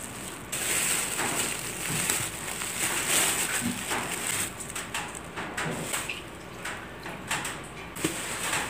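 Thin plastic produce bags crinkling and rustling as the vegetables inside them are handled, a dense run of sharp crackles.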